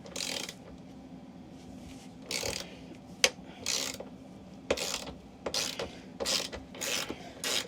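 Hand socket ratchet clicking in a series of short strokes, roughly one every half second to a second, as it backs a lag screw out of the slide-out motor bracket.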